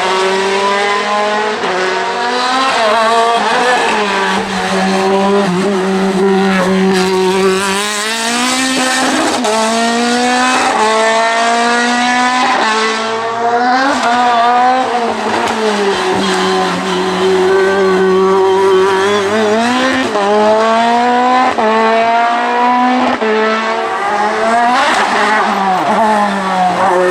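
Race car engine at racing speed on a hill climb course. The revs rise through the gears again and again, falling back between sweeps, with a couple of steadier stretches.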